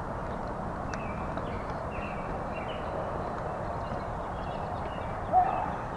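Small birds chirping in short, repeated high notes over a steady low background rush, with one brief louder call about five seconds in.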